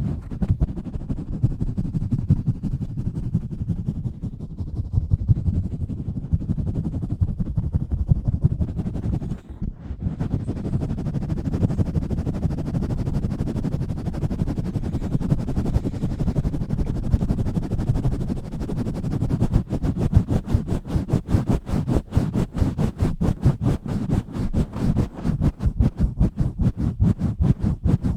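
Hands rubbing, scratching and pumping directly on a bare microphone, giving a dense, loud, low rumbling friction noise. It drops out briefly about a third of the way in. In the last third it turns into fast, rhythmic strokes at about four a second.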